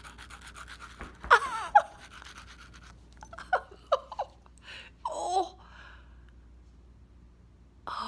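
A nail file rasping rapidly back and forth across a chipped front tooth for about three seconds. Short vocal cries break in about a second in, with a few more brief vocal sounds partway through.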